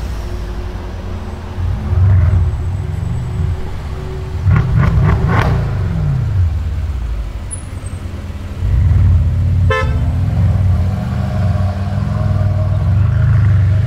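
Brabus-tuned Mercedes-AMG engine running loud, with one rev about four and a half seconds in that rises and falls with a few sharp cracks. It gets louder again from about nine seconds as the car pulls on, and a short sharp beep sounds near the tenth second.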